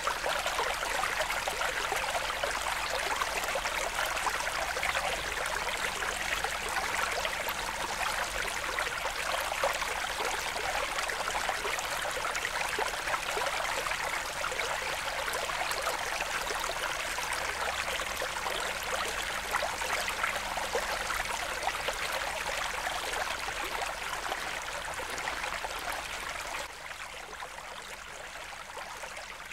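Steady trickling, bubbling water in an aquarium, a little quieter near the end.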